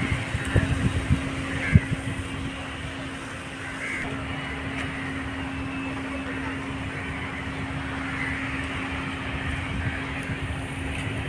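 Steady machinery hum with one constant low tone from a moored tanker's onboard machinery running at berth. Wind buffets the microphone in the first couple of seconds.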